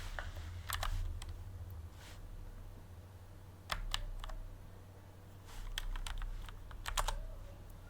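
Computer keyboard typing: short, scattered runs of keystrokes as a terminal command is entered, over a low steady hum.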